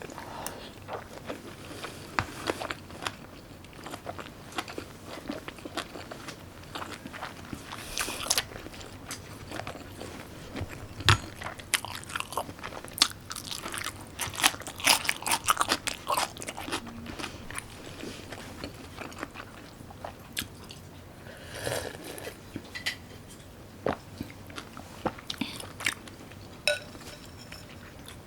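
A person eating close to the microphone: chewing and biting, with many short clicks and crunches, busiest in the middle.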